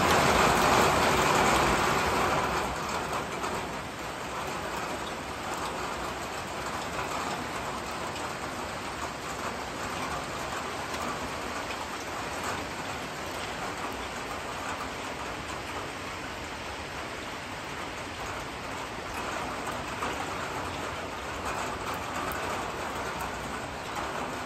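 Rain falling steadily, louder for the first two seconds or so and then settling to an even, unbroken patter.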